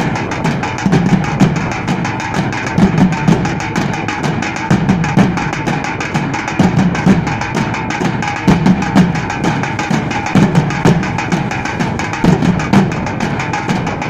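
A group of large metal-shelled drums beaten fast with sticks: a dense, steady stream of strokes with heavier low accents about once a second.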